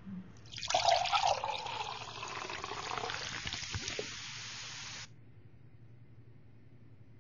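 Liquid pouring and splashing into a large stemmed glass, loudest just after it starts about half a second in, then steadier, and cutting off suddenly about five seconds in.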